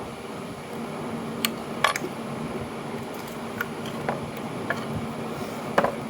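Scattered sharp metallic clicks and clinks, about six in all at irregular moments, from hand tools and parts being handled while a Delco starter is taken apart, over a steady background hum.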